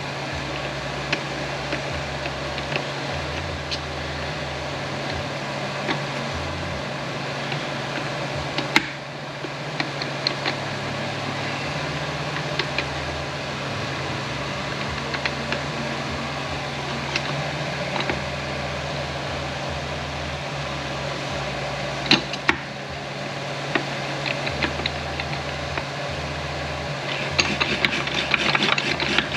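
Steady mechanical hum of workshop machinery with a few sharp metal clicks, and a quick run of clinks near the end, as steel transfer-case parts are worked into the case and will not line up.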